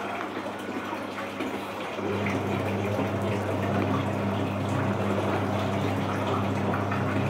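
A steady low machine hum, like an electric motor, sets in about two seconds in and holds, over a constant rushing noise.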